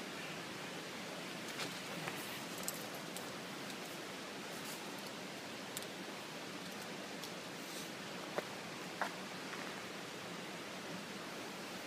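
A steady rushing hiss, with a few faint, sharp clicks scattered through it; the two loudest clicks come about half a second apart near the end.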